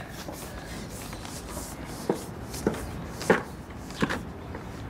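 Small metal pail swinging on its wire handle as it is lowered on a hooked stick, giving four short creaks and clinks about every half second through the second half.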